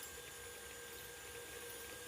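Faint steady hum and hiss of room tone, with no distinct events.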